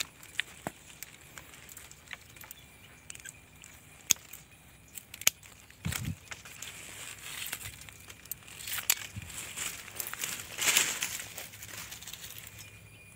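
Scattered sharp clicks of hand pruning shears working among the branches, a dull thump about six seconds in, then a stretch of rustling and crunching of dry leaf litter and twigs on the ground.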